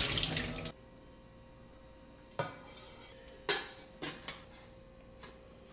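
Metal couscous steamer pot parts being handled: a short clattering rush at the start, then about five separate knocks and clinks of metal against metal.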